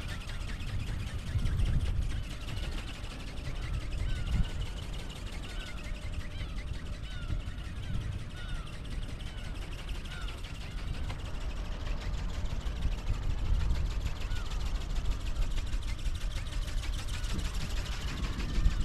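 Strong wind buffeting the microphone with a low rumble. In the middle stretch a bird calls repeatedly in the background, short arched calls about once a second.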